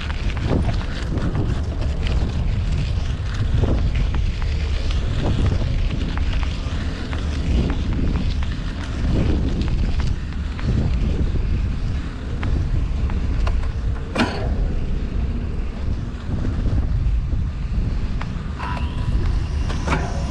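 Wind buffeting the microphone of a moving bicycle over the noise of city street traffic. There is one sharp click about two-thirds of the way through, and a steady high tone sets in near the end.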